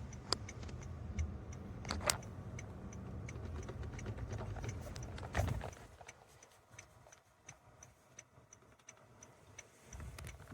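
Faint, regular light ticking, about three ticks a second, with a few louder sharp clicks, the loudest about 2 s and 5.5 s in, over a low rumble that fades out about 6 s in.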